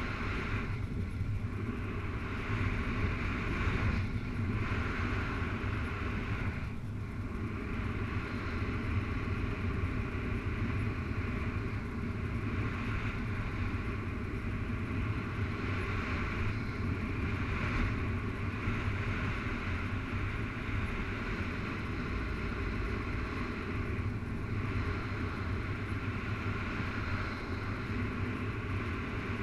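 Steady wind rushing over the camera microphone in paraglider flight, with a few brief lulls in the first several seconds.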